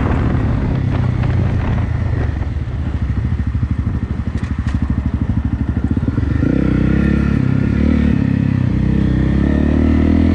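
Single-cylinder motorcycle engine running at low revs with an even putter for a few seconds, then revving up about six seconds in and pulling under throttle.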